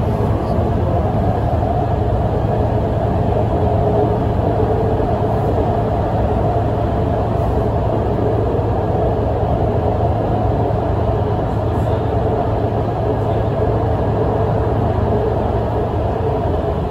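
Steady interior running noise of a Guangzhou Metro Line 7 train travelling between stations: a low rumble of wheels on rail with a faint steady hum, heard from inside the carriage.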